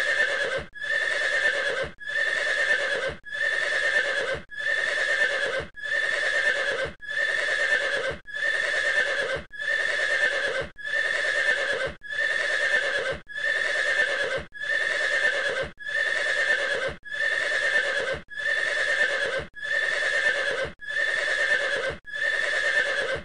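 A horse neighing, the same call of about a second repeated over and over, a little more than a second apart with short gaps between.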